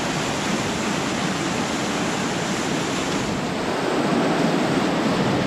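Steady rushing of a mountain creek's whitewater tumbling over rocks, a little louder from about four seconds in.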